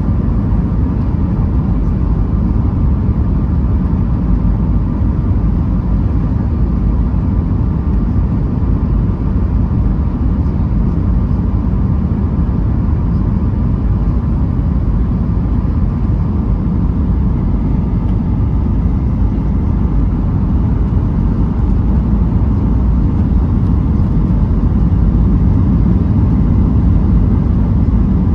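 Steady low rumble of a Boeing 737 MAX 8's CFM LEAP-1B engines and rushing airflow, heard inside the passenger cabin in flight, growing a little louder near the end.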